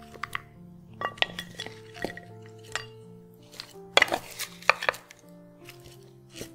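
A wooden spatula knocking and scraping against ceramic plates while salad is served, in scattered clicks, the loudest two close together about four seconds in. Soft background music of held notes plays underneath.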